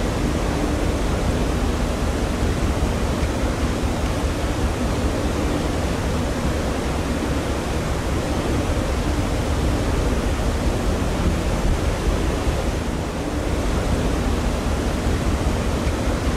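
Steady, dense rushing of wind and sea aboard a Cook Strait ferry under way, with a faint steady hum underneath.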